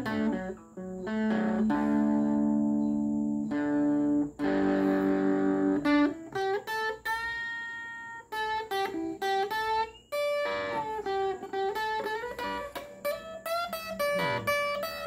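Guitar played solo: a few held, ringing chords, then a quicker run of single picked notes.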